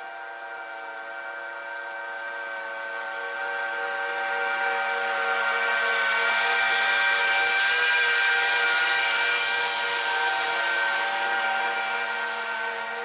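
Scag Tiger Cat zero-turn mower with a grass bagger cutting grass, a steady mechanical whine that grows louder as the mower drives up close, peaks about two-thirds of the way through, then fades as it moves away.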